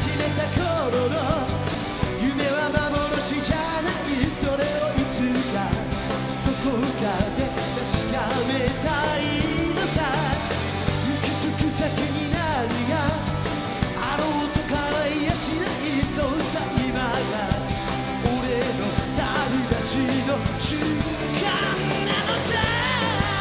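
Live rock band: a male lead singer belting a song over electric guitar and a steady drum beat.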